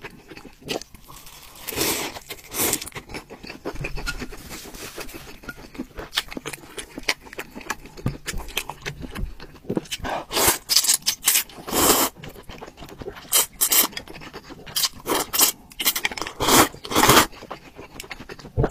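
Close-miked eating sounds: noodles in broth slurped from chopsticks and chewed, coming in uneven bouts that grow louder and more frequent about halfway through.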